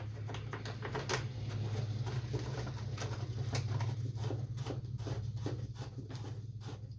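Light, irregular clicks and rattles of a plastic air filter cover being handled and fitted onto a Briggs & Stratton engine, over a steady low hum.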